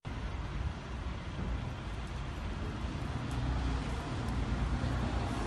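Street traffic noise from buses and taxis running close by: a steady low hum of engines and road noise that grows a little louder about halfway through.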